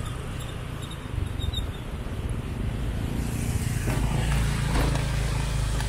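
Motorcycle engine running steadily at low riding speed with a deep rumble, under wind noise on the microphone. About three seconds in, a louder, even rushing noise joins.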